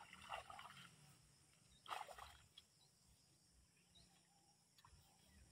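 Near silence: faint outdoor ambience, with one brief soft rustle of noise about two seconds in.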